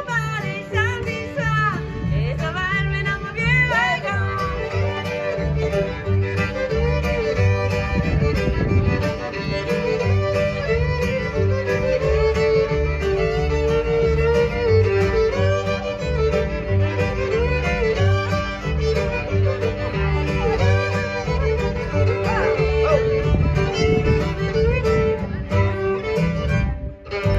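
Live string band instrumental break: twin fiddles playing the melody together over acoustic guitar and upright bass keeping a steady beat. The tune stops abruptly near the end.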